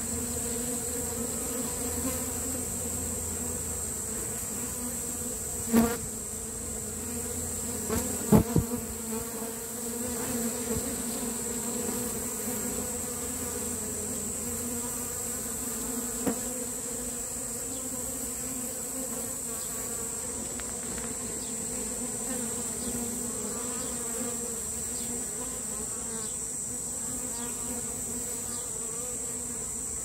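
A swarm of honeybees humming steadily in a dense cluster as it moves into a wooden hive box. A few sharp knocks break in about six seconds and eight seconds in, with a fainter one near the middle.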